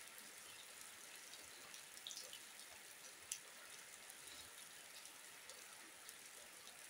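Steady light rain falling, with scattered small drips and one sharper drop about three seconds in.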